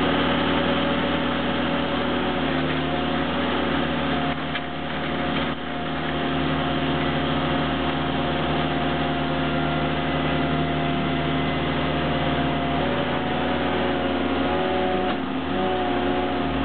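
Skid-steer loader engine running steadily under load while its hydraulic auger attachment drills a post hole. A few steady higher tones sit over the engine sound and shift in pitch near the end.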